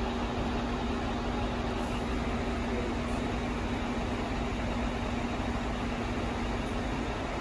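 V/Line coaches' diesel engines idling with a steady hum. A steady tone runs through the hum and stops shortly before the end.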